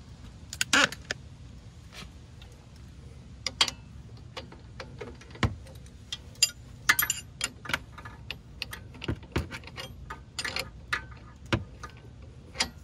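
Metal hand tools clinking and tapping irregularly as a wrench and bar are worked onto the nut at the top of a car's front stabilizer link.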